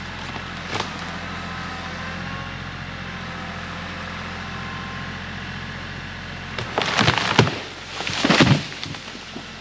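Tractor engine running steadily under load as it pulls on a hollow tree. About seven seconds in, the trunk gives way with two loud bursts of cracking and splintering wood over about two seconds.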